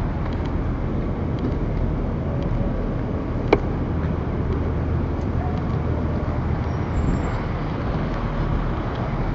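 Steady city street traffic noise from passing cars, a constant low rumble, with one short sharp click about three and a half seconds in.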